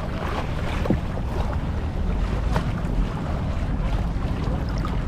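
Wind buffeting the action-camera microphone with a heavy low rumble, over water splashing and lapping around a kayak being paddled against the waves.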